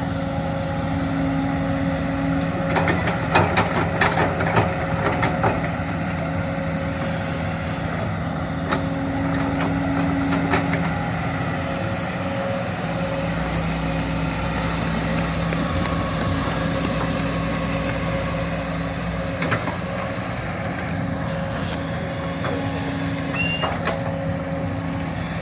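Excavator engine running steadily while it digs, with a cluster of sharp metallic clanks about three to five seconds in and a few single knocks later.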